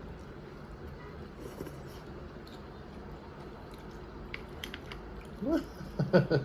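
Low steady background noise with a few faint small clicks, then a short burst of a person's voice near the end.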